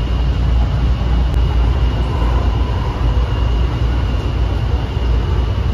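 Honolulu Skyline metro train running on its elevated guideway, heard from inside the car: a steady low rumble with a thin, steady high whine over it.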